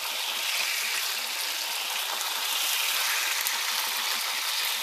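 Chicken tenderloins sizzling as they shallow-fry in hot oil in a frying pan, a steady crackling hiss.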